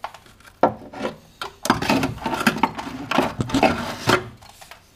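Rust-rotted sheet steel around the VAZ 2109's rear strut-mount well being scraped and pried at with a hand tool as rusty metal breaks away. A sharp knock about half a second in, then a couple of seconds of dense scraping and knocking.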